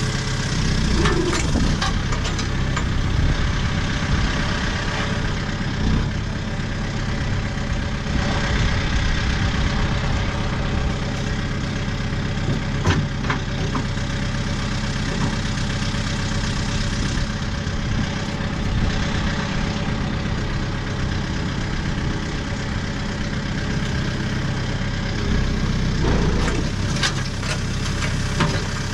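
A diesel tractor engine running steadily at a low, even speed, with a few faint clicks over it.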